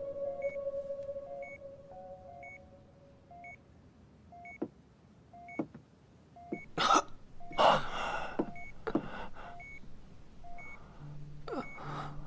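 Hospital patient monitor beeping at a steady, regular rate. A few loud, short breathy sounds come between about seven and nine seconds in.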